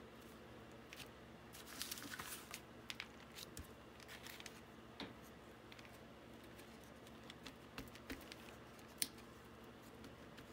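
Faint tabletop handling: light scrapes, taps and rustles as a rubber-band-wrapped wooden block is inked in wet paint and pressed onto card. There is a flurry of small taps about two seconds in and one sharp tick near the end.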